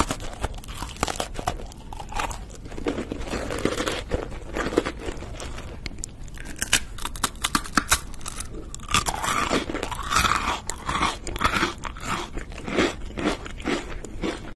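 Close-miked crunching and chewing as chocolate-coated snacks are bitten: a round chocolate-covered cookie, then a cream-filled chocolate wafer roll, with many sharp crackles, the densest near the end.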